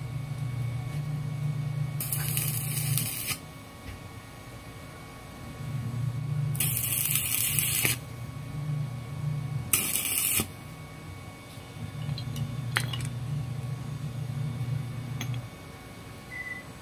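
Stick welding a steel pipe nipple onto a steel block to form a stove's nozzle burner: the arc crackles and hisses in three bursts of about a second each, over a low hum that comes and goes. A few sharp clicks follow near the end.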